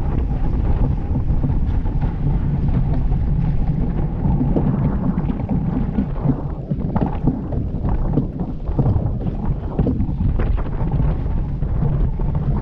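Wind buffeting the microphone over the rush of water along the hull and wake of a Mills 41 racing yacht sailing fast, a steady loud rumble.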